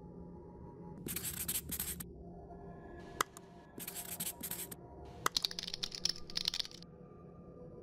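Felt-tip marker scratching across a whiteboard in three bursts of writing strokes, with a couple of sharp clicks, over faint background music.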